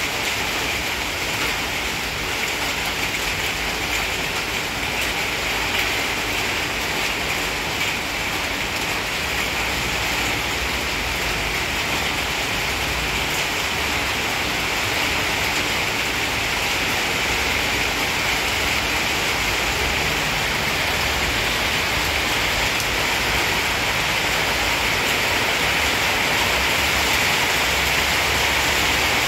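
A steady, even hiss with no distinct events in it, strongest in the upper-middle range and growing slightly louder near the end.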